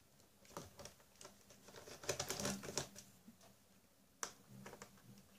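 Faint small clicks and scrapes of a small screwdriver turning screws out of the plastic base of an ASUS Transformer Book T100 keyboard dock, with a sharper click about four seconds in.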